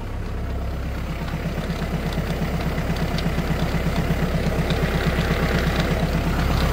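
Kubota KL380's 38 hp naturally aspirated four-cylinder diesel engine running steadily with third gear engaged, a fast, even pulsing that grows slowly louder.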